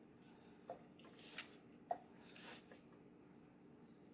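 Onion powder shaken from a seasoning shaker over a raw pork roast: a few short, soft swishes and a sharp click about two seconds in, against a faint steady room hum.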